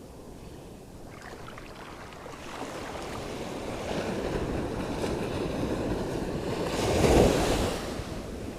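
Sea surf washing in, building to one louder wave breaking near the end, with wind on the microphone.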